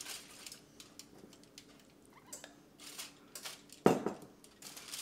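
Silicone basting brush dabbing and spreading sauce over bread lying in aluminium foil, with small scattered clicks and foil crinkles, and one sharp knock about four seconds in.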